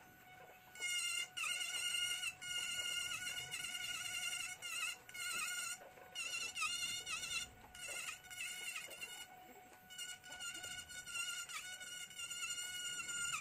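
Pen-style electric rotary carving tool whining at a high pitch as its bit carves ngọc am wood. It starts about a second in and runs in short stretches with brief breaks, its pitch dipping briefly where the bit bites.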